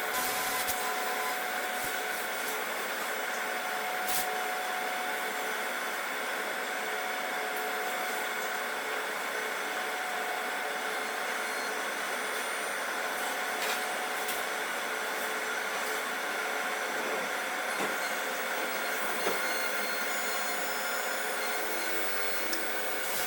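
CNC machine tool running steadily: an even whirring hiss with a few faint steady tones and an occasional light click.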